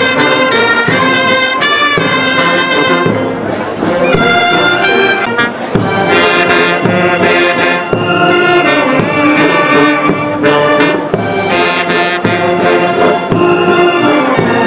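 Brass band playing a tune outdoors, led by sousaphone, euphonium and saxophones, with the notes changing continually.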